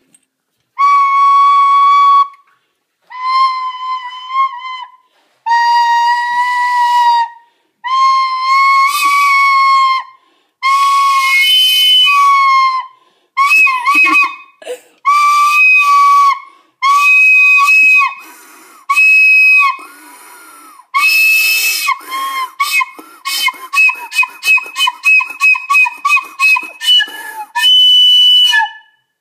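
High-pitched whistling with a breathy hiss: a string of long held notes of one to two seconds each, then from about halfway a faster run of short, choppy notes, some of them higher.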